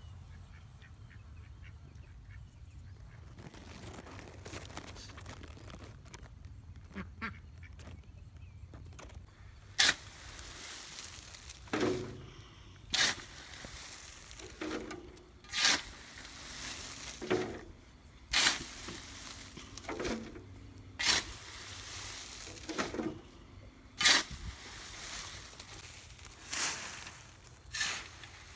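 Ducks quacking, a short harsh call about every second, starting about a third of the way in.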